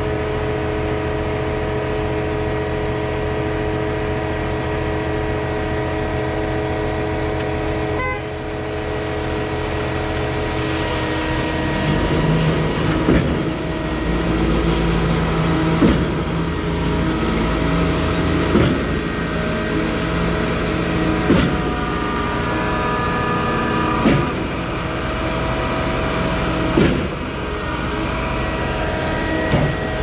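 Diesel engines of a truck-mounted concrete boom pump and a ready-mix truck running steadily. About twelve seconds in the pump starts stroking as it is primed, with a heavy clunk about every two and a half to three seconds as its pistons change over.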